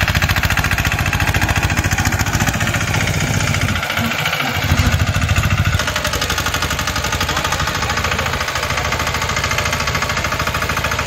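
Greenland Big Bull three-wheeled mini tractor's engine running with a fast, even firing beat while it pulls a rear-mounted cultivator through the soil. The sound dips briefly about four seconds in.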